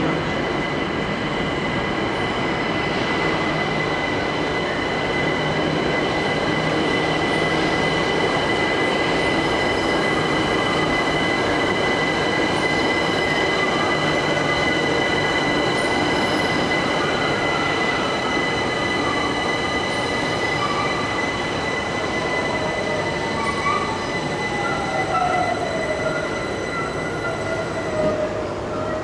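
London Overground electric train running, with a steady high electric whine over the rumble of wheels on rail and some wheel squeal. In the last several seconds a second whine falls steadily in pitch.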